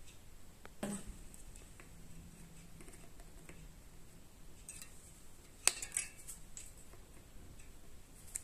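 Plastic zip-tie tails being snipped with small side cutters: a soft knock about a second in, then one sharp snap a little past halfway, followed by a few lighter clicks.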